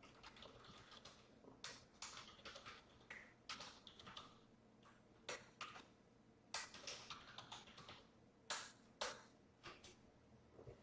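Faint, irregular clicks and taps of typing on a computer keyboard.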